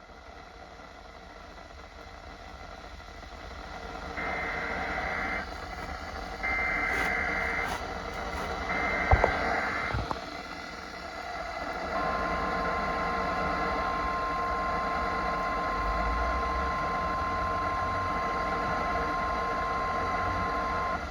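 NOAA Weather Radio emergency alert: three one-second bursts of two-pitch SAME header data tones, with two sharp clicks near the third, then the steady 1050 Hz warning alarm tone held for about nine seconds over radio hiss, heralding a tornado watch.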